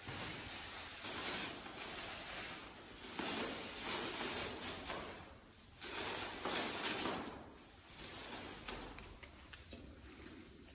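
Fabric and clear plastic wrapping rustling as objects are unwrapped by hand, coming in several uneven swells.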